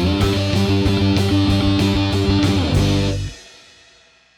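Outro music with electric guitar and a steady beat, ending about three seconds in and fading out.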